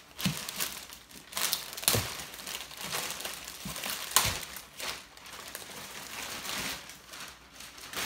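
Clear plastic bag crinkling and rustling as it is pulled off a backpack, with two louder knocks about two and four seconds in.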